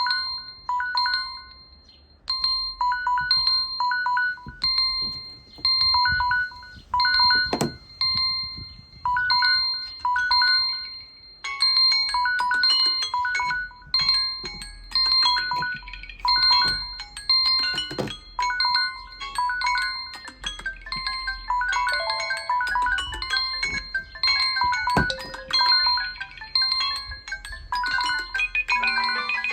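Smartphone alarm and timer tones: a repeating pattern of short electronic beeps in pairs. From about eleven seconds in, a second, more melodic alarm tone plays over it. A few sharp taps are heard along the way.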